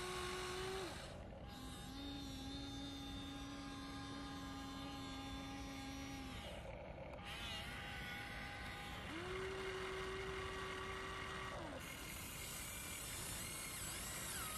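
RC excavator's electric motor whining in stretches of a few seconds as the boom and bucket move, each stretch at a steady pitch and cutting in and out with short pauses between.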